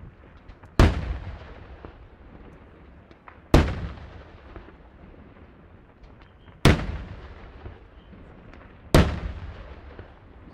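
Four loud bangs of daytime fireworks shells bursting overhead, spaced about two to three seconds apart, each trailing off in a long echo.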